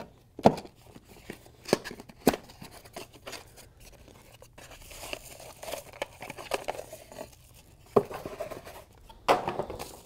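Scissors snipping and a small cardboard box being opened by hand, with a few sharp snips and clicks among plastic packaging rustling and crinkling.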